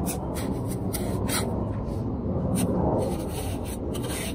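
Small trowel and hand scraping and smoothing wet cement against the inside of a cement mould, in repeated short, irregular scrapes.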